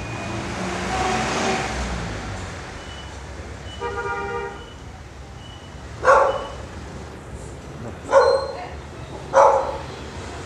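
A dog barks three times, loudly, about six, eight and nine seconds in, over a steady low hum. A short horn toot sounds about four seconds in.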